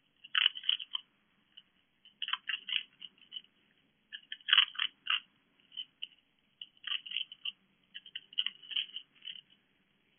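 A fox crunching dry food pellets from a dish: about five bouts of quick, crisp crunches with short pauses between them.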